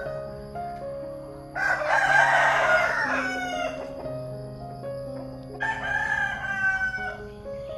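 A rooster crowing twice, each crow lasting about a second and a half: once about a second and a half in, and again near six seconds in. Soft background music with slow, sustained notes plays underneath.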